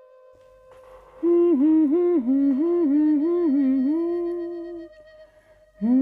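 A voice humming a slow, stepped tune over a faint steady musical drone. The humming starts about a second in, breaks off shortly before five seconds, and starts again near the end.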